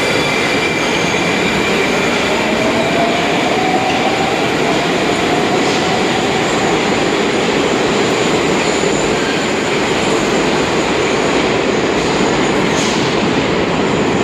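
Moscow Metro 81-760A/761A/763A 'Oka' train moving through a station along the platform: a loud, steady rumble of wheels and running gear, with a faint whine that rises slowly in pitch over the first several seconds as the train picks up speed.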